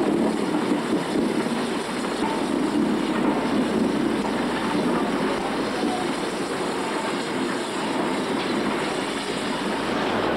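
BR Standard Class 4 2-6-4 tank steam locomotive running slowly as a light engine, a steady rumble with hiss and no distinct beat.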